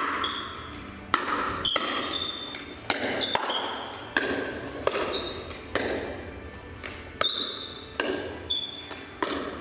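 Pickleball rally: sharp pops of paddles hitting the plastic ball and of the ball bouncing on the court, about one every second, echoing in a large hall.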